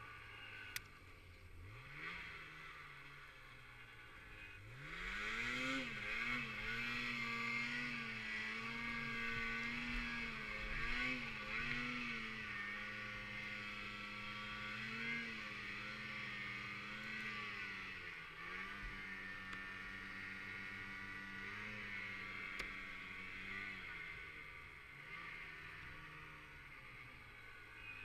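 Snowmobile engine revving up about five seconds in and running at high revs, its pitch wavering with the throttle, dropping a step past the middle and easing off near the end.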